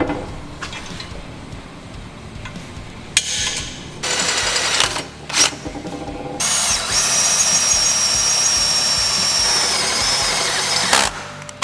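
Electric drill boring holes through the steel frame tubes for rosette welds. The bit cuts with a steady high squeal from about six seconds in until near the end, after a shorter run just before.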